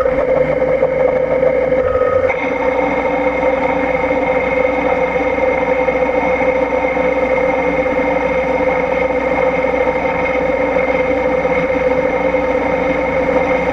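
CNC milling machine spindle running with a steady whine while a small end mill cuts a spiral flute along a tap blank turning on the fourth-axis rotary chuck.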